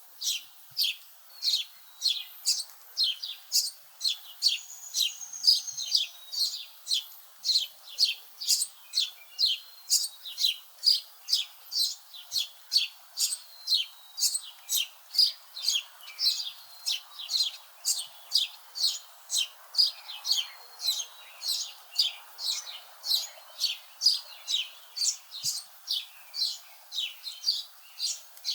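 A bird chirping, one short high chip about twice a second in a steady, even rhythm. A fainter bird whistle comes in briefly a few seconds in, over faint steady background noise.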